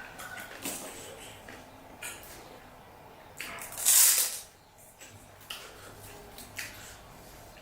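Close-up eating of pani puri: scattered short crunching and wet mouth noises, with one louder hissing sound lasting about half a second around four seconds in.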